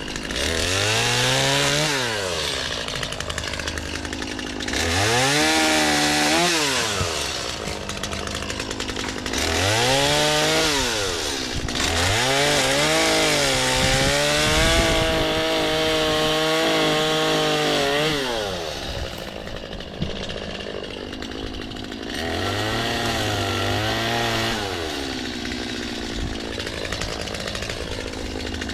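Chainsaw revving up and dropping back toward idle about five times, with one longer steady run of several seconds near the middle, cutting into crepe myrtle trunks.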